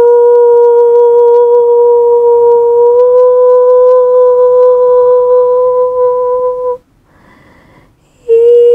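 A single long held note in a slow solo meditative piece, pure and flute- or hum-like, with a slight step up in pitch about three seconds in. It stops after about seven seconds, and after a short pause a new held note begins near the end.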